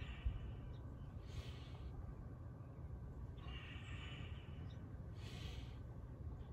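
A person breathing slowly and deeply, about two full breaths in and out, faint over a low steady rumble.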